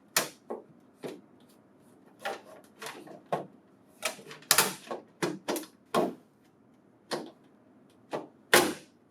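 A string of sharp, irregular plastic clicks and taps as a connector cover is handled and snapped into place on the back of a printer's booklet finisher, with the loudest clicks about halfway through and near the end.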